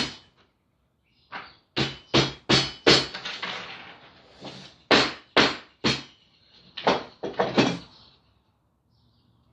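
Homemade wooden machete chopping, about eleven sharp knocks in three quick runs.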